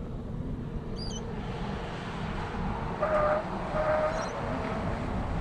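Toyota LandCruiser 79 Series V8 turbo diesel approaching from a distance along the road, heard as a low, steady rumble of engine and tyres. A few short, higher-pitched calls sound about three and four seconds in.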